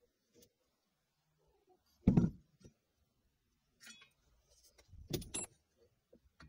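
Metal parts knocked and set down on a wooden workbench: one heavy knock about two seconds in, then metallic clinks and knocks around four and five seconds in.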